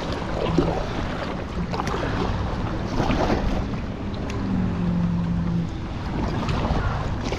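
Kayak paddle strokes splashing through choppy river water, about one stroke every second and a half, with gusty wind buffeting the microphone.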